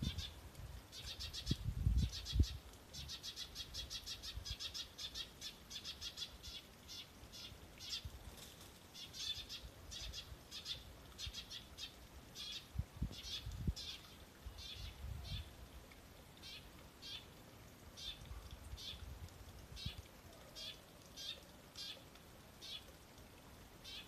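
A bird calling in a long run of short, sharp, high notes: a fast series of about four notes a second early on, then slowing to one or two notes a second. A few low bumps of handling noise come near the start and about halfway through.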